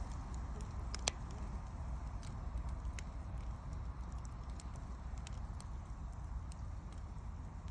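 Wood fire burning: scattered sharp crackles and pops over a steady low rush, with one louder pop about a second in.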